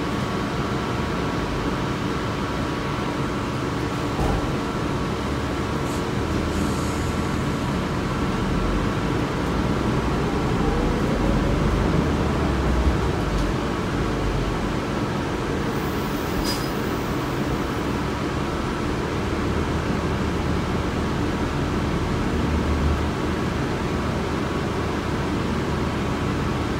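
Cabin noise of a 2006 New Flyer C40LFR CNG bus heard from the rear seats: its Cummins Westport ISL-G engine running, with a steady hum, likely the air conditioning. A low rumble swells about a third of the way in and again near the end.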